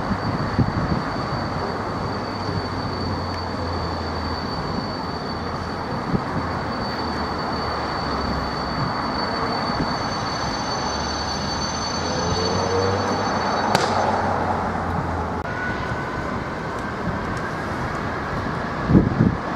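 Freightliner Class 66 diesel locomotive's two-stroke V12 engine running with a low, steady throb as it slowly hauls a container train. A thin, steady high-pitched whine runs underneath, with a single sharp click about two-thirds of the way through.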